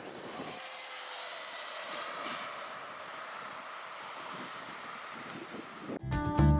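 Radio-control model airplane's electric motor whining, rising quickly in pitch as it throttles up and then holding nearly steady. Music cuts in near the end.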